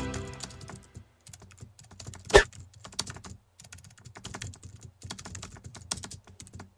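Music fading out in the first second, then light, irregular clicks and taps with one sharp knock about two and a half seconds in.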